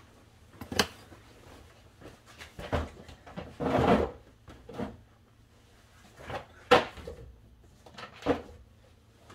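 A handful of sharp knocks and clacks, with a longer clatter about four seconds in, from hand work on the inner parts of a Jeep Grand Cherokee's rear door.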